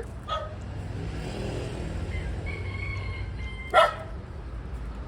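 Low drone of a passing motor vehicle, swelling and fading through the middle, with a single dog bark near the end.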